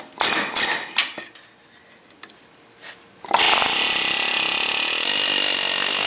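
Pneumatic air chisel (air hammer) hammering on steel, driving factory ball-joint rivets out of the control arm. It fires in a few short bursts in the first second, then runs steadily and loudly from about halfway in.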